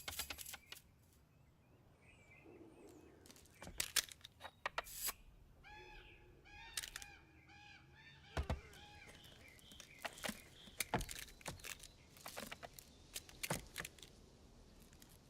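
Film sound effects: scattered sharp knocks and clicks, with a run of repeated pitched, honking calls about six seconds in.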